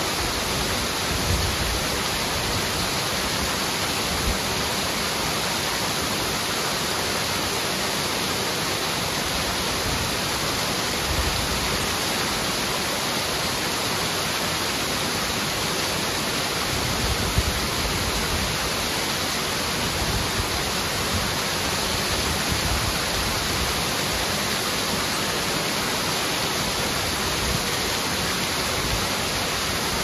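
Waterfall pouring over a rock ledge onto boulders and into a pool: a steady, unbroken rush of falling water.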